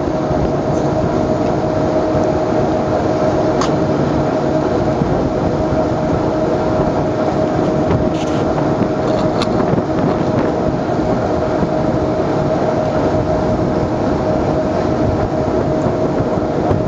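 Passenger boat's engine running steadily, a constant drone with a steady hum, heard through the open cabin window over water and wind noise.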